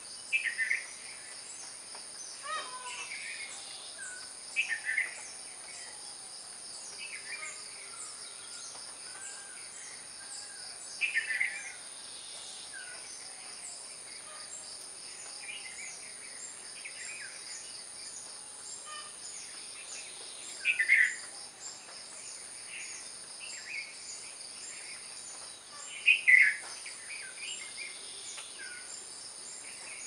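Short bird calls come in bursts every few seconds, loudest about two-thirds of the way through and near the end. Under them runs a steady, high insect drone.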